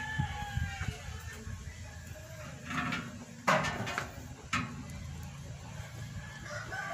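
Metal parts handled at a car's rear drum brake hub: a single sharp knock about halfway through, with a few fainter knocks around it.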